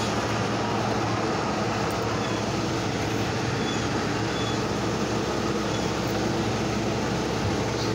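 Steady rumble of school bus engines running.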